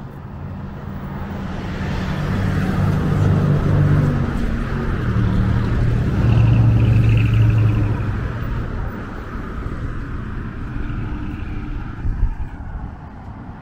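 Road traffic passing close by: engine hum and tyre noise swell over the first few seconds, are loudest in the middle, and fade toward the end.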